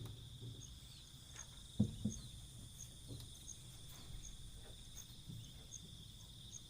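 Steady insect chorus: a continuous high buzz with regular chirps about one every three-quarters of a second. Two short soft knocks about two seconds in.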